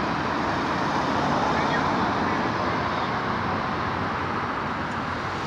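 Steady road traffic noise from cars and a van moving along a multi-lane street: an even hum of engines and tyres.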